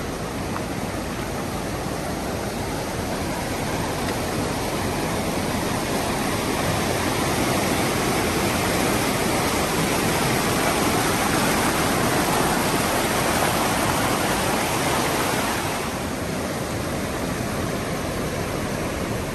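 Fast mountain stream of glacial-lake meltwater rushing and splashing over rocks, a steady, dense rush of water. It grows a little louder a few seconds in and eases slightly near the end.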